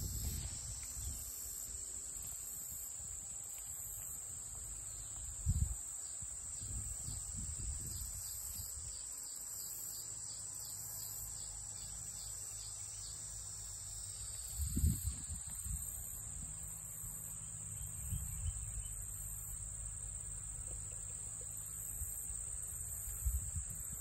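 Insect chorus: a steady high-pitched trilling, with a second, higher insect song pulsing on and off over it. A couple of low thumps come through, about five seconds in and again about fifteen seconds in.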